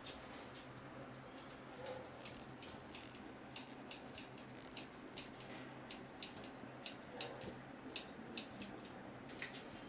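Light, sharp crackles and clicks of hands working through hair and over the scalp during an Indian head massage, coming irregularly a few times a second over a faint steady low hum.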